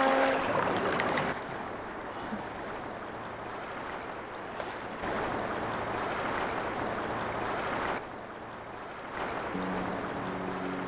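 Waves washing on open water with wind: a steady rushing noise that steps up and down in level several times.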